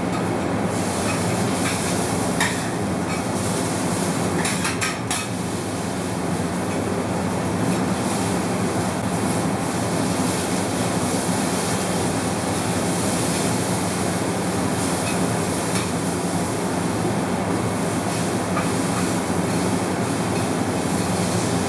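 Zucchini slices frying in butter on a hot steel teppanyaki griddle, a steady sizzle over a low hum. A few light clicks of metal spatulas on the griddle come at about two and a half and five seconds in.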